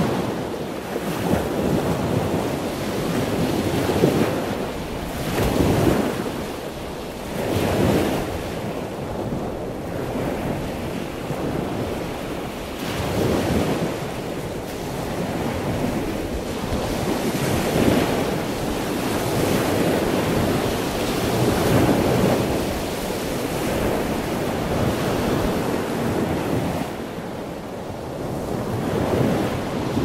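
Loud ocean surf: waves breaking and washing in, swelling and easing every few seconds.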